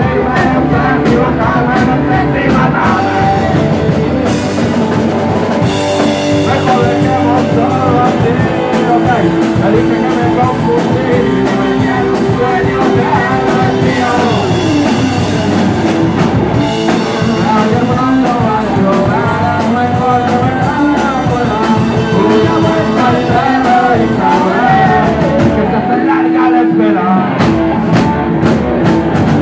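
Live rock band playing loud: electric guitars, bass guitar and drum kit, with a male voice singing.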